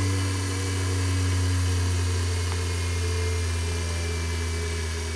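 Homemade Tesla turbine's rotor humming as it slows from about 5,900 to 5,200 rpm, its low tone sinking very slightly in pitch, with a steady hiss over it.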